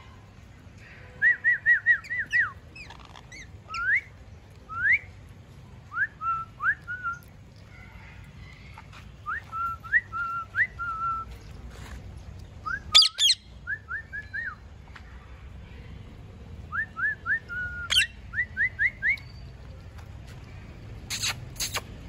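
Rose-ringed parakeets calling: runs of short, quick, rising whistled chirps, several at a time. There is one loud harsh call about thirteen seconds in and a few loud harsh screeches near the end.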